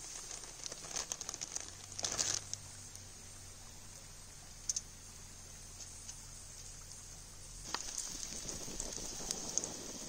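Wood campfire crackling, with scattered pops and clicks and a short rustle about two seconds in; about three-quarters of the way through the crackling turns denser and louder.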